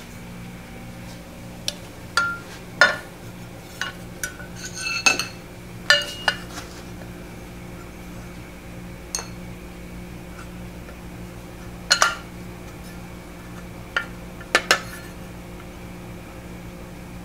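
Short lengths of cut rectangular metal tubing clinking and knocking against each other and against the mill's column as they are handled. There are about a dozen sharp, ringing clinks, bunched in the first several seconds, with a few more later.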